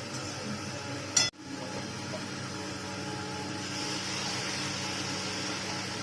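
Food cooking in a pan on the stove, with a sharp click about a second in; the sizzling hiss grows stronger about halfway through.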